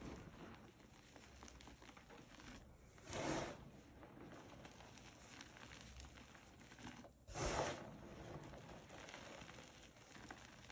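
Soft gym chalk reforms being scooped and crushed by hand: a faint, continuous powdery crunching and crumbling, louder twice, about three seconds in and again about seven and a half seconds in.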